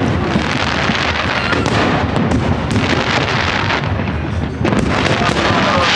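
Large fireworks display going off in a dense, continuous barrage of overlapping bangs and crackle, with a fresh wave of bursts about four and a half seconds in.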